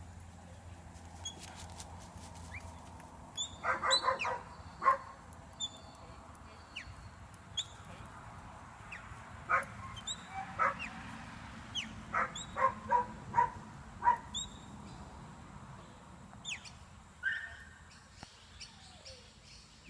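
Kelpie barking in short, sharp barks while working sheep: a few near four to five seconds in, then a quick run between about ten and fourteen seconds. Birds chirp thinly and high in the background.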